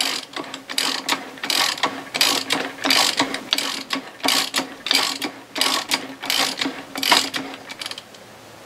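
Socket wrench ratcheting on the centre bolt of a bearing-carrier puller, a run of quick clicks about two or three a second that stops shortly before the end, as the puller draws the bearing carrier out of a Yamaha 225 HPDI outboard's lower unit with little effort.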